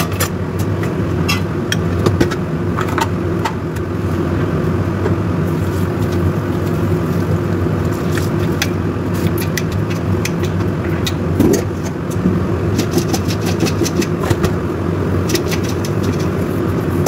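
A steady low mechanical hum, with frequent light metallic clinks of a ladle and lid against a stainless steel stockpot.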